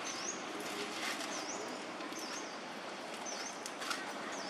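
A bird repeating a short high chirp that dips and rises, five times, over steady outdoor background noise. A few sharp snaps come about a second in and near the end.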